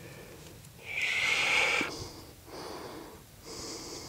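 A man breathing heavily: one long, loud, hissing breath about a second in, then two softer breaths.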